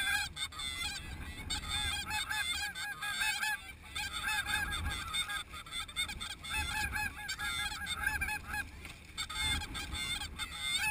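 A large flock of snow geese calling, many short, high honks overlapping almost without a break, thinning briefly about a third of the way in and again near the end.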